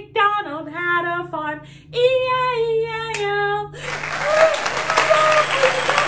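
A woman singing in long held notes, then, near the end, a burst of cheering and clapping lasting about two seconds.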